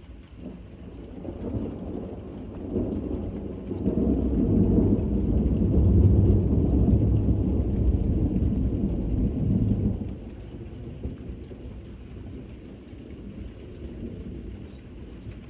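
Thunder rumbling over steady rain: a deep roll builds over a few seconds, stays loud for about six seconds, then dies away about ten seconds in, leaving the rain.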